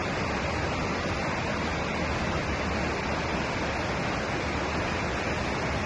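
Steady rush of creek water spilling over a small waterfall of about 6 to 8 feet.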